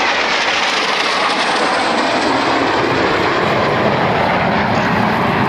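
Jet roar of Blue Impulse Kawasaki T-4 jets flying past in formation: a loud, steady rushing roar that grows deeper in the second half.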